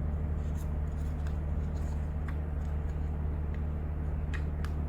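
Steady low hum with a few light clicks and taps of small plastic seat-belt parts being handled.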